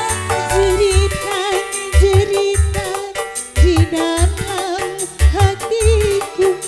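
Live dangdut music played on an electronic keyboard: a bending, wavering melody line over steady low drum beats.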